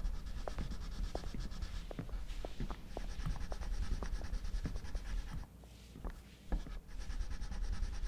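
A child drawing on paper at a table: irregular short scratchy strokes, with a brief pause a little past the middle, over a low room hum.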